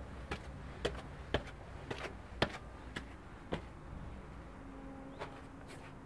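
Footsteps on stone steps, sharp steps at about two a second that stop about three and a half seconds in, with one more step near the end.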